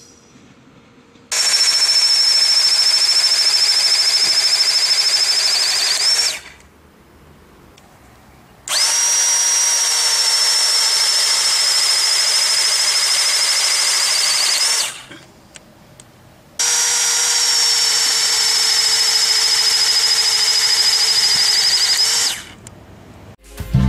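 A high-speed electric motor run three times for about five to six seconds each, with a high whine over a rushing noise. The whine sags slightly while it runs and rises just before each stop.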